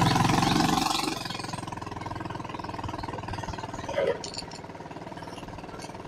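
Small motorbike engine pulling hard for about a second, then running steadily at a lower level while riding along.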